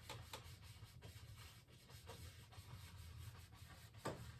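Faint scratching and rubbing of a paintbrush worked in small circles over an oil-painted canvas, with a light tap about four seconds in.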